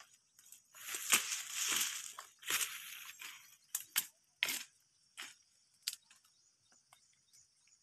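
Leaves and stems of dense brush rustling and crackling as someone pushes through it: a longer rustle for the first few seconds, then a scattering of sharp twig snaps.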